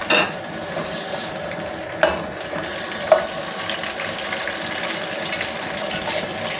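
Long green chillies sizzling as they are lightly fried in oil in an aluminium pot, stirred with a metal spoon that clinks against the pot three times.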